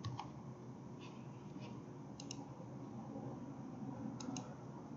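Faint scattered clicks, two of them in quick pairs, over low room noise.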